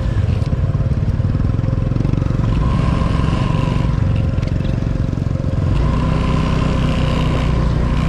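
Motorbike engine running as it rides through shallow floodwater over the road, with water swishing and spraying around the wheels.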